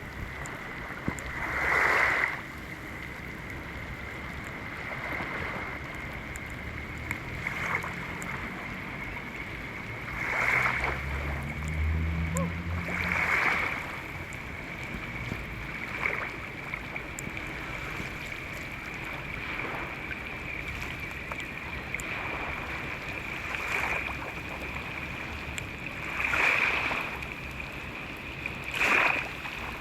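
Seawater washing in at irregular intervals, one swelling wash every two to four seconds, over a steady hiss of rain.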